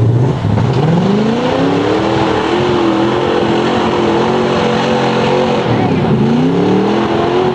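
Lifted pickup truck's engine revving hard while bogging through a mud pit. The revs climb over the first couple of seconds and hold high, dip briefly about six seconds in, then climb again near the end.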